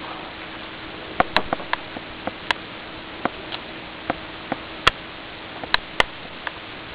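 A steady hiss with a faint hum, broken from about a second in by an irregular run of about fifteen sharp clicks and ticks, the loudest near the end.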